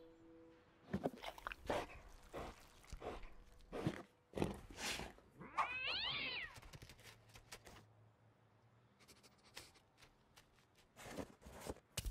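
A kitten gives one meow about six seconds in, among scattered light taps and scuffles from an animated film's soundtrack.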